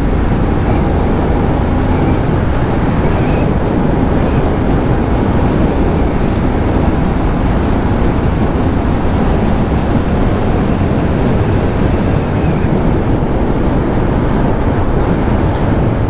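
Steady rush of wind over the microphone of a motorcycle at riding speed, with the bike's engine running and its tyres on a wet road underneath.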